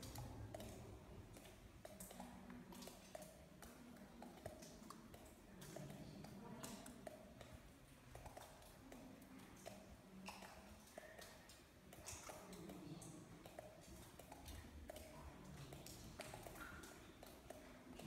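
Near silence in a cave: faint room tone with scattered soft clicks and taps and a low murmur underneath.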